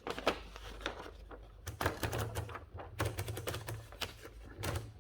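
Seidel & Naumann Erika folding typewriter clacking as its keys and shift mechanism are worked: four short clusters of quick mechanical clicks.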